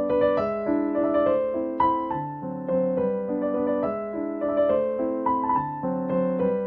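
Gentle background music on a piano-like keyboard: a simple melody over sustained chords, with new notes struck every fraction of a second.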